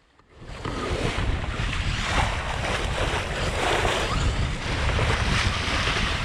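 Wind and rushing sea water of a sailing yacht under way on the open ocean, with wind buffeting the microphone. It starts abruptly about half a second in and stays at a steady roar.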